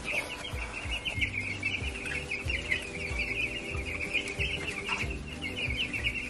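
A brooder full of Cornish broiler chicks peeping all at once, a continuous chorus of many short, overlapping high chirps, with a faint steady hum beneath.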